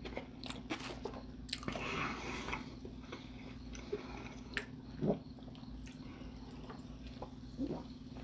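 Mouth sounds of someone chewing food close to the microphone: sparse soft clicks and smacks over a steady low hum.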